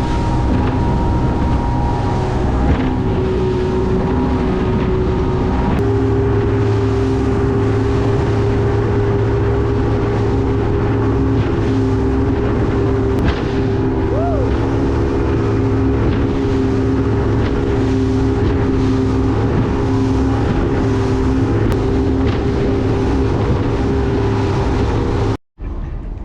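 Fishing boat's engine running steadily, with wind noise on the microphone; the engine note steps up slightly about six seconds in, and the sound cuts out abruptly near the end.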